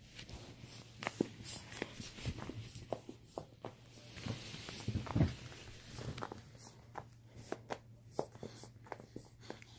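A dog chewing and pawing at a toy: irregular clicks and rustling with a few soft thumps about five seconds in.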